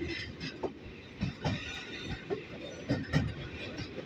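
Freight train running on the line, heard from aboard a wagon: a steady rumble with sharp wheel knocks over the rail joints, about two a second and unevenly spaced.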